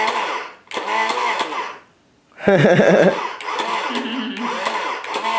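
A young child's wordless vocal sounds: babbling and excited squeals in short bursts, with a brief pause about two seconds in followed by a loud burst.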